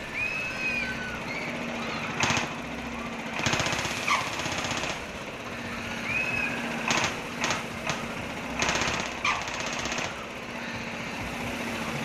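Stationary diesel engine driving a pirate-ship swing ride, running with a loud open exhaust. Its fast knocking beat swells in repeated bursts every second or two as it pushes the rubber drive tyre against the swinging boat.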